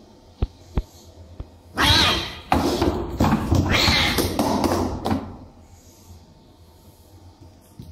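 Two domestic cats fighting: three short thumps, then about three seconds of loud, angry hissing and yowling in two bouts as they swat at each other, cutting off suddenly.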